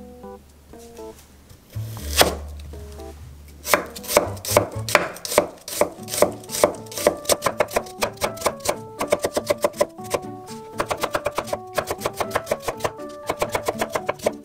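Kitchen knife slicing an onion on an end-grain wooden cutting board: one heavier knock about two seconds in, then a quick, steady run of knife strokes through the onion onto the board, several a second and quickening toward the end.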